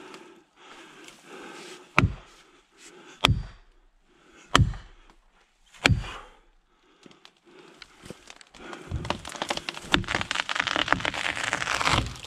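Four sharp blows of an axe driving a felling wedge into a Sitka spruce's back cut, a little over a second apart. Then, from about eight seconds in, a growing crackle of wood fibres tearing at the hinge and branches snapping as the tree goes over.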